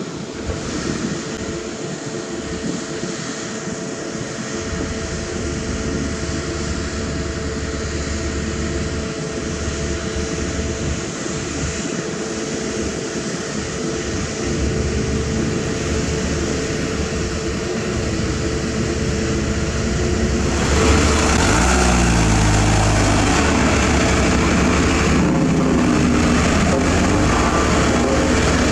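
Diesel engines of heavy construction machinery running steadily. About twenty seconds in a louder diesel dump truck engine takes over, its pitch sliding as it changes speed while driving.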